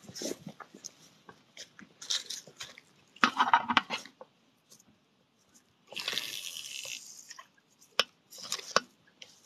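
Irregular rustling and crunching noises, the loudest a little past three seconds in, with a longer hiss around six seconds and a sharp click near the end: handling noise and footsteps as the angler walks the bank.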